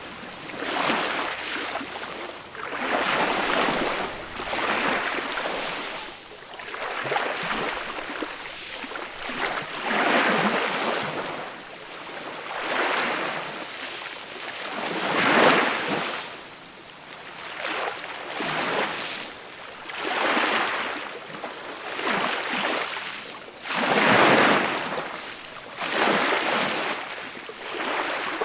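Small, gentle sea waves washing onto a beach: a soft rush of surf swells and fades about every two seconds, with the two biggest waves about halfway and two-thirds of the way through.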